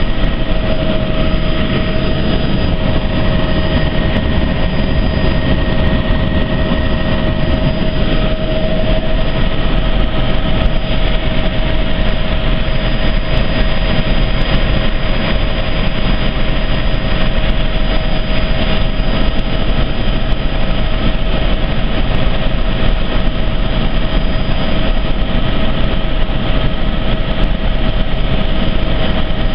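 Helicopter in flight, heard from on board: a loud, steady drone of engine and rotor with a few constant whining tones over it.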